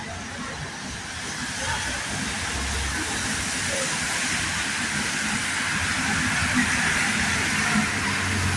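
Rushing hiss of an approaching vehicle, growing steadily louder, with a low hum coming in about two and a half seconds in.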